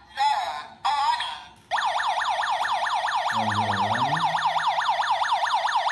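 A TUYA home security alarm siren set off by its motion sensor: a few short loud bursts, then a continuous fast electronic warble sweeping up and down about seven times a second.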